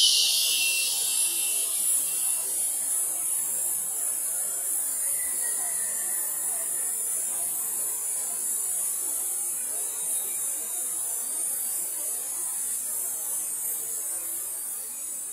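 A steady, high-pitched buzzing hiss over a dull wash of noise, slowly fading toward the end.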